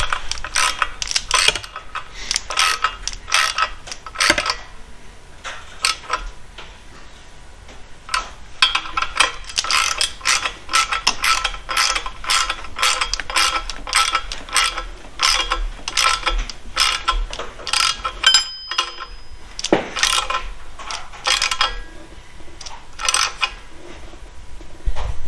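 Ratchet wrench clicking in repeated runs of short strokes while bolts are run down, with a pause partway through.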